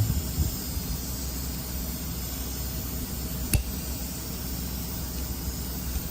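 Steady hiss and low hum, with a few light taps near the start and one sharp click about three and a half seconds in, as valves in a transmission pump cover are pushed to check that they slide freely.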